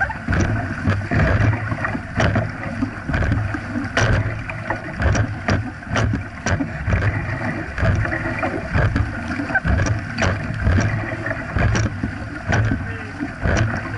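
Dragon boat crew paddling hard: paddle blades catching and pulling through the water in a quick, regular rhythm, with water rushing and splashing along the hull close to the microphone.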